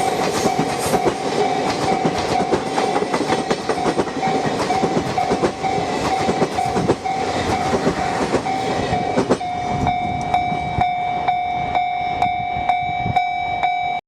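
Passenger coaches rolling past, their wheels clattering over the rail joints, while the level crossing's electronic alarm rings a steady, pulsing tone. The wheel noise ends a little over halfway through, leaving the crossing alarm ringing alone at about two beats a second.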